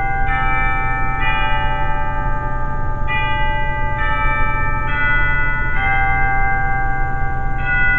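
Pipe organ playing sustained chords that change about once a second, with a steady low hum underneath.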